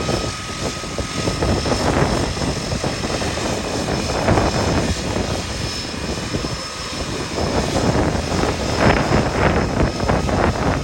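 De Havilland DHC-3 Otter floatplane's engine and propeller running steadily as it taxis on the water, with a faint steady whine over the noise and gusty wind on the microphone.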